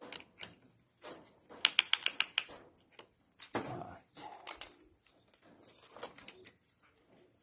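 Metal clicking and clinking of piston rings being worked into a piston ring compressor by hand: a quick run of about six sharp clicks near two seconds in, then a heavier knock about a second and a half later, with scattered lighter clicks around them.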